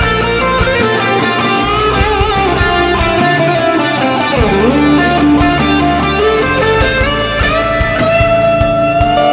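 Background music: an instrumental led by guitar, with sliding notes over a steady beat.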